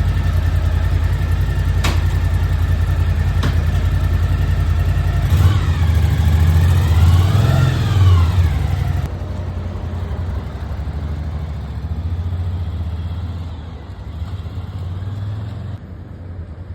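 Suzuki V-Strom DL1000's V-twin engine running at idle, revved up and back down once about halfway through. It then runs on more quietly from about nine seconds in.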